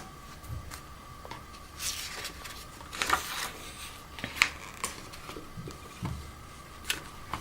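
Paper rustling and handling, as of a picture book's pages being handled and turned: a few short rustles and soft clicks, the longest about three seconds in, over a faint steady hum.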